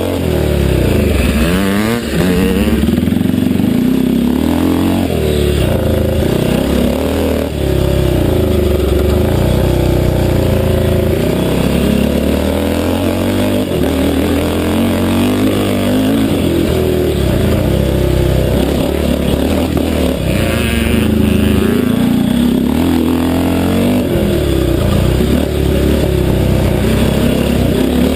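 500cc classic motocross bike engine under hard riding, heard from onboard, its pitch rising and falling over and over as the throttle is opened and shut.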